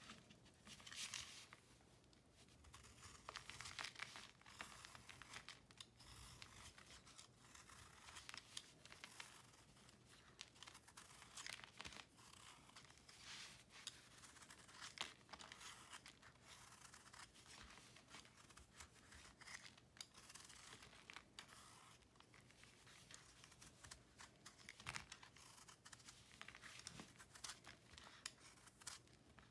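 Snap-off utility knife blade shaving a dried block of cornstarch, calcium carbonate and chalk: an irregular run of quiet, dry scraping strokes as flakes crumble off.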